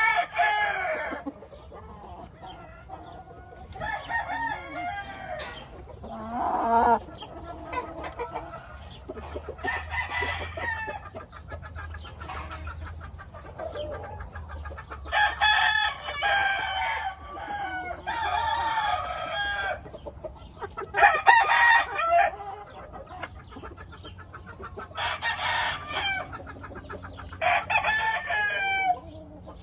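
Gamefowl roosters crowing again and again, mixed with clucking: about ten calls, each a second or two long.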